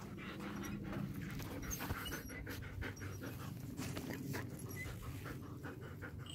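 Husky sled dog panting quickly, close to the microphone.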